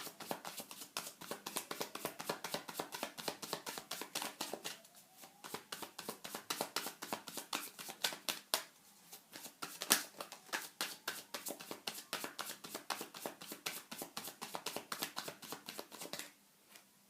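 Tarot cards being shuffled by hand: a long run of quick flicking clicks, several a second, with a couple of short lulls, stopping about a second before the end.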